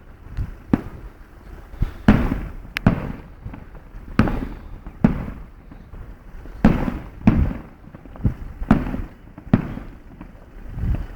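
Festival fireworks display going off at a distance: about a dozen irregularly spaced bangs, each trailing off in an echo.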